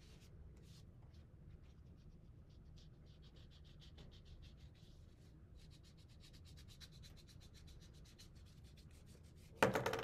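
Paintbrush brushing paint onto a paper plate: quick, repeated scratchy strokes, faster and denser in the second half. One loud, sudden thump just before the end.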